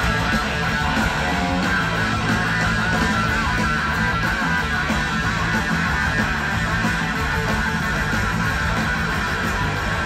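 Live band playing a blues-rock song, with electric guitar to the fore over drums and bass, heard from the audience.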